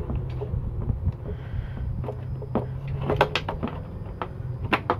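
Plastic clicks and rattles of a tail lamp wiring harness and its bulb-socket connectors being handled and pulled loose from the housing, with a dense run of sharp clicks in the last two seconds. A steady low hum runs underneath.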